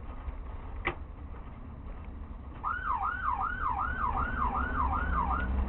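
Police siren in its fast yelp mode, a quick rising-and-falling wail repeated about two and a half times a second, starting a little past halfway. Under it runs the steady low rumble of the pursuing vehicle on a dirt road, with a sharp click about a second in.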